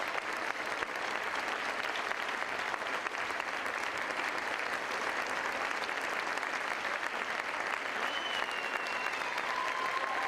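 Steady sustained applause: many people clapping in a continuous round.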